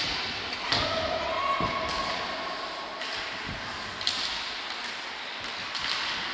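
Ice hockey play in an echoing indoor rink: sharp knocks of sticks, puck and boards, several times, over a steady wash of skates and hall noise.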